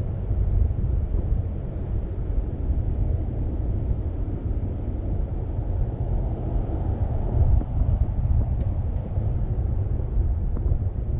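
A car driving steadily, heard as a continuous low rumble of road noise and wind on the microphone, with no distinct engine note.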